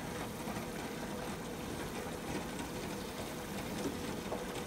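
Pot of rice at a rolling boil, a steady bubbling hiss, stirred now and then with a wooden spatula; a faint steady hum underneath.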